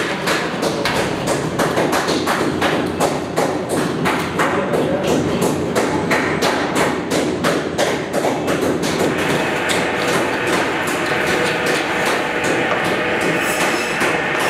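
Butchers' knives knocking and chopping on steel tables and cutting boards as meat is cut up, an irregular run of sharp thuds and taps, with music underneath.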